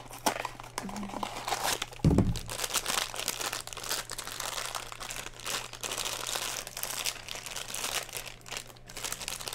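Crinkling and tearing of blind-box toy packaging as a mystery-mini figure is unwrapped, with one loud thump about two seconds in.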